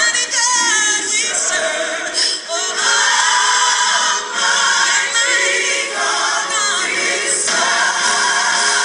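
Gospel music with a choir singing, played for a liturgical dance.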